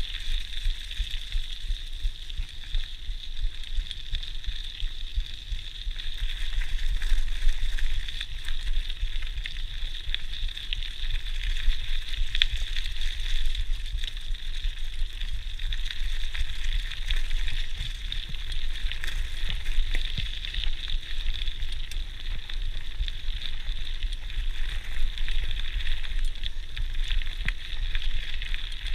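GT Outpost Trail mountain bike's tyres rolling over a gravel and leaf-strewn forest track: a steady crackling hiss. Wind rumbles low on the chest-mounted action camera's microphone.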